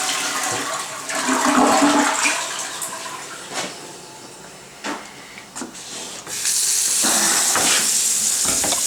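Toilet flushing, the water rushing with a steady low tone and then dying down. About six seconds in, a loud steady hiss of running water starts suddenly.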